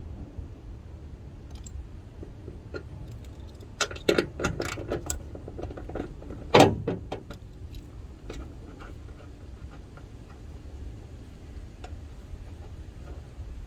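Metal hand tools and hardware clinking and clattering as a 10 mm socket wrench unbolts an old hood latch. There is a run of clinks about four seconds in, a single louder knock a couple of seconds later, and scattered light ticks.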